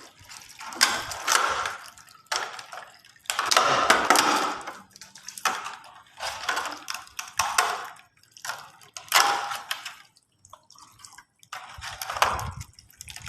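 Water gushing out of a freshly opened pipe in uneven spurts and splashing, a surge about every second or so with short breaks between.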